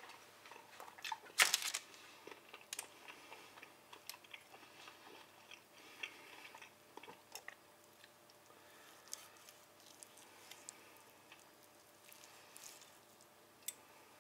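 Steak knife sawing through the seared crust of a roasted bone-in beef ribeye, with small clicks and scrapes of the knife and fork against the meat and parchment paper. A louder scrape about a second and a half in.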